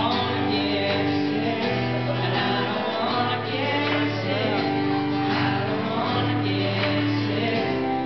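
Man singing a parody pop song live into a microphone while strumming an acoustic guitar, heard through a PA system.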